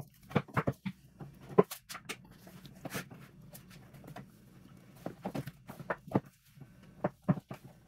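Hard plastic jump-starter case being handled as its front cover is fitted back on, with the thick rubber-sheathed clamp cables pushed through it: irregular clicks, knocks and rubbing of plastic.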